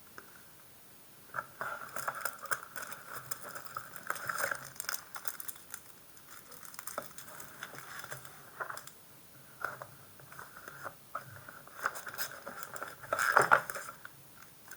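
Packaging being opened and handled: wrapper crinkling and tearing with scattered small clicks, loudest about 13 seconds in.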